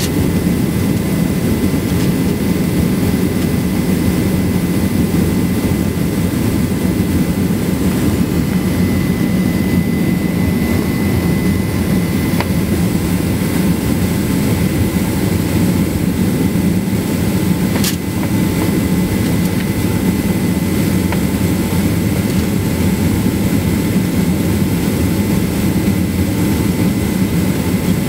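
Cabin noise of a Boeing 767-300 taxiing: the jet engines and airflow make a steady low rumble, with a thin steady whine above it. There is one brief click about two-thirds of the way through.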